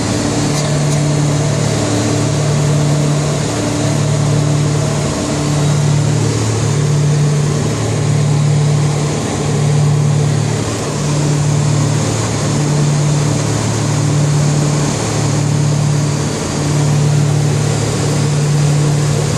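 Twin piston engines and propellers of a Piper Navajo Panther droning steadily in cruise flight, heard inside the cockpit. The drone has a regular throb about once a second.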